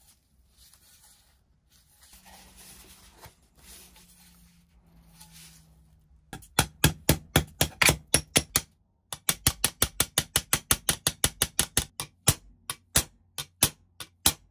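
Small hammer tapping the rim of a cast metal grinder cover held on a steel block: sharp metallic strikes, about five a second, starting about six seconds in, with a brief pause partway and slowing toward the end. Faint handling and rubbing sounds come before the hammering.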